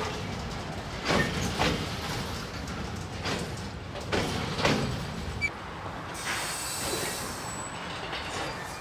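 Loaded car-carrier freight wagons rolling slowly past with a steady rumble, their wheels clacking over rail joints in pairs about half a second apart, a pair every few seconds.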